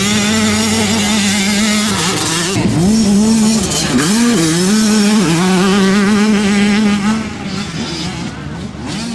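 Small youth motocross bike engine of the 50cc–85cc classes running at high revs. The pitch dips briefly and picks up again three times, then the sound fades away over the last couple of seconds.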